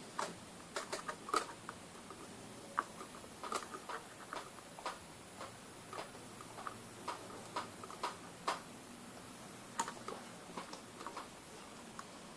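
Metal multimeter probe tips tapping and scraping on component leads and solder joints of a subwoofer amplifier circuit board as the parts are tested. The result is light, irregular clicks, a couple a second with uneven gaps.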